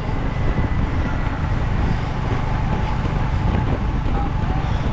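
Steady wind and road noise: a loud, even rumble on the microphone while moving along a road.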